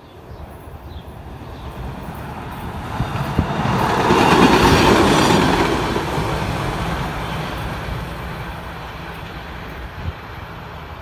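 SEPTA Route 101 Kawasaki light rail trolley approaching, passing close by and running away on the rails. The sound builds to its loudest about four to five seconds in, then fades as the car recedes.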